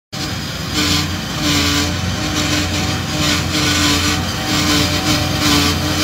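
Engine of a tracked farm machine running steadily in a rice paddy, with a low hum and a steady whine that breaks off and returns.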